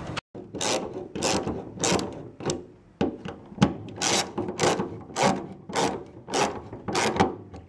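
Socket ratchet wrench clicking in repeated back-and-forth strokes, roughly two a second, running down a nut on a gas tank's fuel pump assembly flange.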